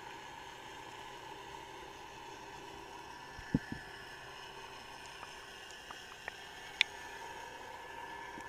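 Underwater ambience picked up by a submerged camera: a steady hiss with a faint even hum, a low knock about three and a half seconds in, and a few scattered sharp clicks, the loudest near seven seconds.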